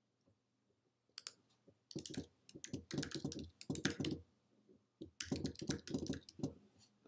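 Typing on a computer keyboard: a lone click, then two quick runs of keystrokes about a second apart.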